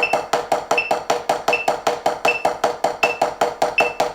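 Marching drumsticks playing steady, even single strokes in sixteenth notes on a 12-inch HQ RealFeel rubber practice pad, with a metronome clicking each beat at 80 beats per minute.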